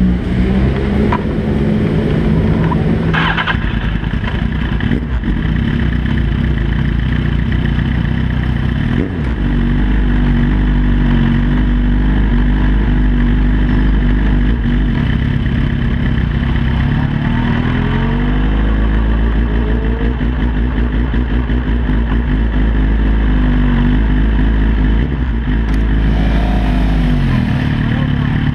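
Sport motorcycle engine running at low revs, heard close up from the bike's tail as it is ridden slowly. There is a brief clack about three seconds in, the revs rise a little past the middle and they drop back near the end.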